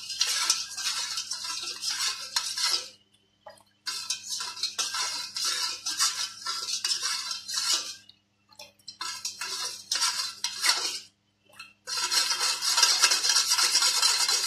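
Metal spoon stirring watermelon juice in a stainless steel bowl, scraping and clinking against the bowl's sides in spells of a few seconds with brief pauses between them.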